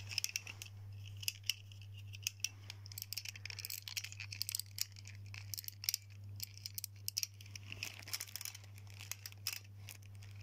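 Irregular small plastic clicks and rattles from a wind-up chattering-teeth toy being handled and wound, over a steady low hum.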